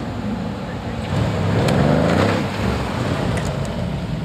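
A car engine accelerating hard past the listener, its pitch climbing to a peak about two seconds in before it eases off.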